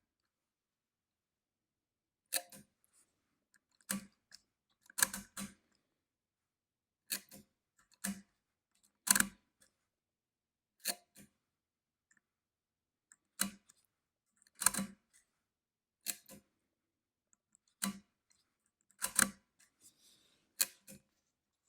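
Argos II chain adding machine worked with a stylus: separate mechanical clicks and clunks every second or two, some in quick pairs, as entries are pulled through its rather stiff chain mechanism.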